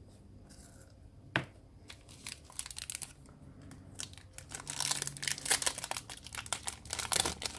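Plastic Yu-Gi-Oh! booster-pack wrapper being crinkled and torn open. After a single sharp tap, dense crackling builds from about two seconds in and is busiest near the end.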